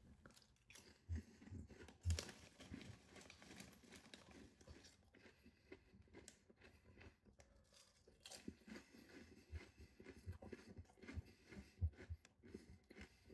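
Faint crunching of a hand-cooked potato crisp being bitten and chewed close to the microphone: two sharper bites about one and two seconds in, then softer chewing, with a run of small crunches again in the last few seconds.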